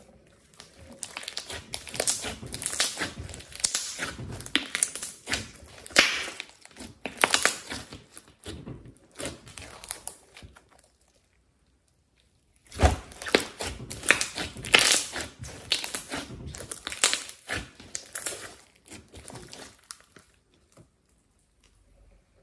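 Thick glossy slime with clay mixed in being stretched, folded and poked by hand, giving dense rapid sticky clicks and pops. It comes in two long runs with a pause of about two seconds between them.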